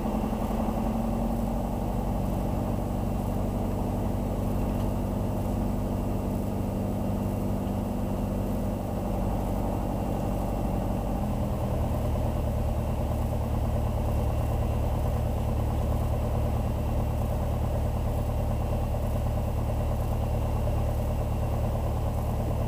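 Tecnam P2010's piston engine and propeller running steadily at low power while the plane taxis. Its tone shifts about halfway through.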